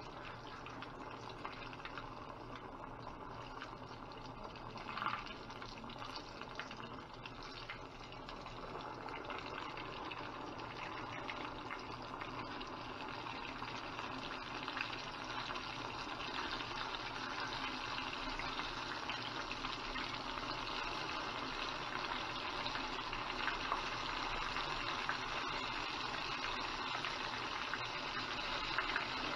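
Flour-coated chicken pieces deep-frying in a pan of hot oil: a steady sizzling hiss of bubbling oil that grows louder as more pieces go in.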